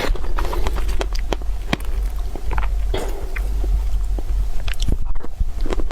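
A person biting and chewing food close to the microphone, with irregular crisp crunches and clicks over a steady low rumble.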